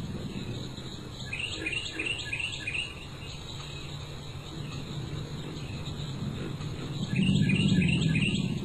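A songbird singing two short phrases of quick, repeated high notes about five seconds apart, over a steady low rumble that swells near the end.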